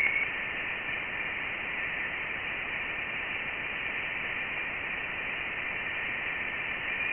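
Voyager 1's plasma wave recording of interstellar space, converted to audio. It plays as a steady static hiss, strongest in a band near 2–3 kHz.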